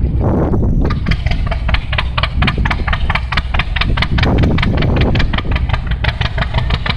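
Slow-running engine chugging with a regular beat of sharp pops, about four or five a second, over a steady wind rumble on the microphone.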